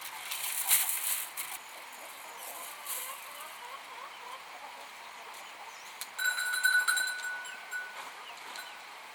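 Rustling and scraping noises near the start, then a high, steady animal call held for about a second and a half, about six seconds in, among farm animals.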